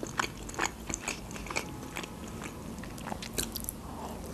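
Close-miked eating sounds from a Georgian khinkali dumpling: quiet, scattered wet mouth clicks and chewing, with a bite into the dumpling near the end.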